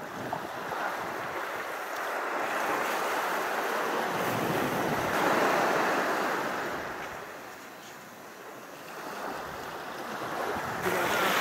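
Sea waves washing up the beach. The surf noise builds to a peak about halfway through, dies down, then swells again near the end.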